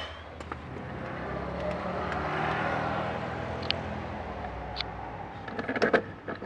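A car passing by: a broad rushing noise that swells and fades over a few seconds. A few light clicks follow, then a burst of knocks and scrapes near the end as the blower motor is handled on a brick.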